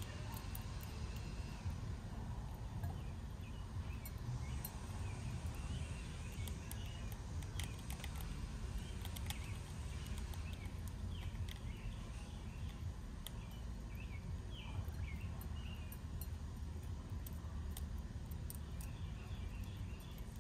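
Eastern gray squirrel chewing seeds held in its paws: crisp crunching clicks, irregular and scattered throughout. Small birds chirp faintly in the background over a low steady rumble.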